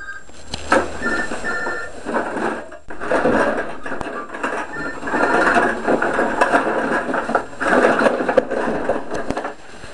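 Empty drink cans and bottles clattering and clinking against each other as they are handled and tipped out of a plastic bag into a bin, a dense run of rattles with a few short ringing clinks.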